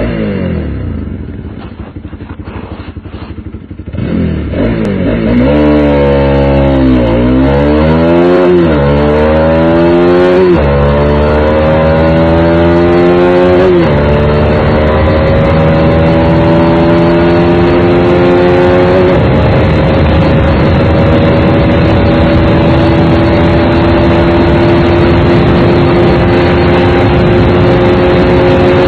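Single-cylinder engine of a Bajaj Pulsar NS200 under full-throttle acceleration. The throttle opens about four seconds in. Its pitch climbs and drops back four times in quick succession as the gears are shifted up, then rises slowly and steadily in top gear as the bike presses toward top speed.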